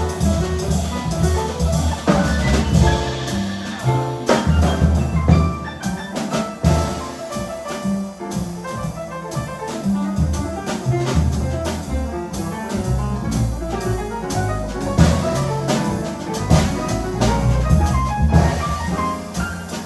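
Jazz quartet of trumpet, piano, double bass and drum kit playing live, with held double-bass notes underneath and frequent drum and cymbal strikes.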